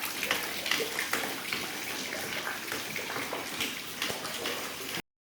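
Rainwater pouring in from an air-conditioning unit and splashing onto a flooded floor: a steady rush of water with many small drips and splashes.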